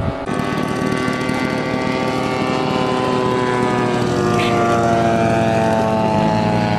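Giant-scale radio-controlled model aeroplane engine running steadily, its pitch slowly falling. A second, lower engine note comes in about six seconds in.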